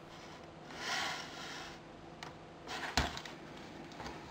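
Handling noise of a black plastic project box packed with wiring being held and turned over in the hands: a soft rustle about a second in and a sharp plastic click about three seconds in.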